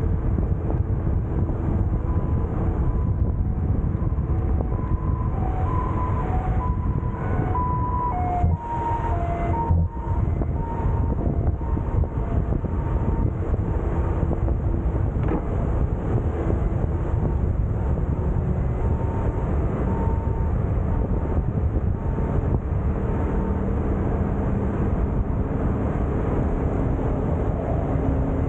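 Riding on a motor scooter: wind buffeting the camera microphone over the small engine's steady running and tyre noise, with a few faint short high tones now and then. Near the end a large bus passes close alongside.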